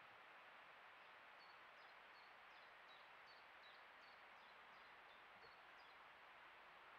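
A bird singing faintly: a run of short, high notes, some held flat and some falling, about two to three a second. It starts about a second in and stops near the six-second mark, over a steady hiss.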